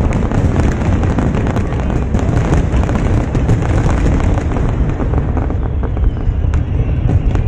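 Barrage of aerial fireworks shells bursting, a dense, continuous rumble of booms and crackling, with a few separate sharp cracks standing out near the end.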